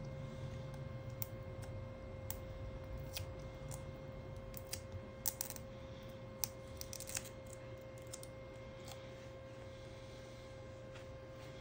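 Scattered light clicks and taps of a plastic spudger against the frame and parts of an opened Google Pixel 3 phone, busiest about five to seven seconds in.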